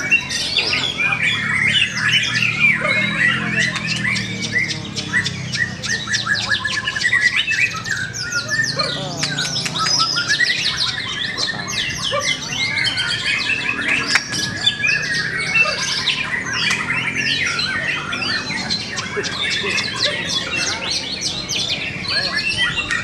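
White-rumped shama (murai batu) singing loudly in a dense, unbroken run of varied chirps, trills and whistles, with other caged songbirds singing over it. A low murmur of voices lies underneath.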